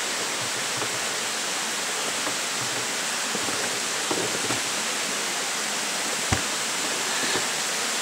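Steady rush of a small creek flowing over rocks below, with a few light knocks of footsteps on wooden stair treads, the sharpest about six seconds in.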